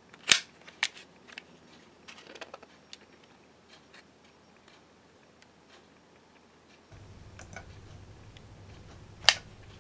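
Sharp plastic clicks and light handling noise from a Zip disk and its clear plastic case being handled: one loud click just after the start, a second about half a second later, light rattling around two seconds in, and another sharp click near the end. A faint low hum comes in about seven seconds in.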